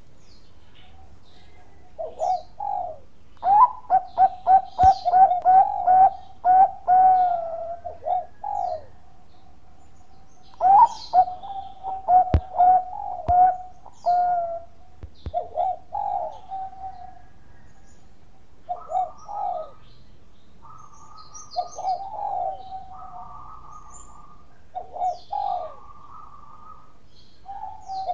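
Zebra dove (Bangkok-line perkutut) singing its cooing song: a long run of quick staccato coos about four seconds in, another about eleven seconds in, then shorter coo phrases.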